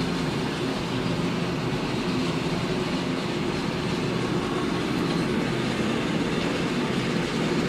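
Stone crusher machine running steadily on its trial run: a continuous dense mechanical rattle over an even hum.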